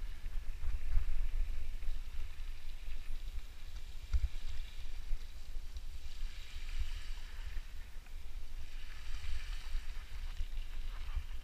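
Mountain bike going through a shallow river crossing: water hissing and splashing around the tyres, swelling twice in the second half, over a steady low rumble of wind buffeting the microphone.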